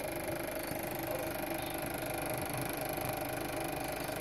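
Elmo ST1200 Super 8mm sound projector running steadily, the motor and film transport making an even mechanical drone with a thin, constant high whine.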